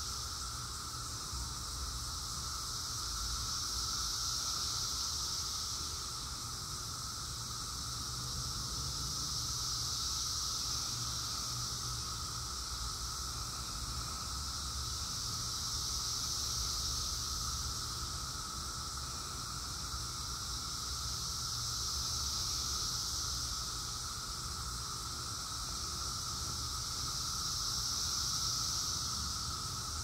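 Chorus of cicadas calling in the woods: a high, hissing drone that swells and fades about every six seconds, over a steadier lower-pitched droning band.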